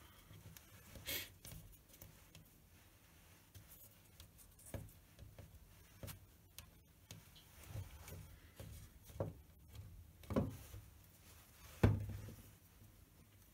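Fingers pressing and rubbing soft plasticine into the coin slot of a plaster piggy bank, with faint scraping and several soft knocks of hands and the bank on the workbench; the loudest knock comes near the end.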